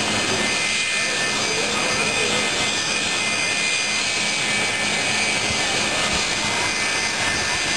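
McDonnell Douglas MD-83's rear-mounted Pratt & Whitney JT8D jet engines running at taxi power as the airliner rolls slowly past: a steady rush of engine noise with a high whine.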